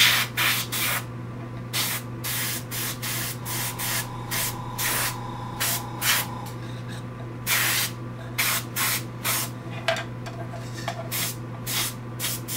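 Iwata HP-CH airbrush spraying paint onto a small plastic model in many short hissing bursts, each under a second, as the trigger is pulled again and again. A steady low hum runs underneath.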